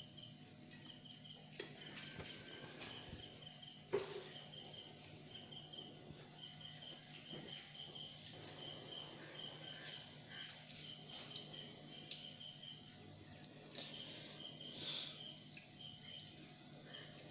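Faint insect chirping: short pips repeated in quick runs through most of the stretch. A few small clicks come in the first four seconds, the one at about four seconds the loudest.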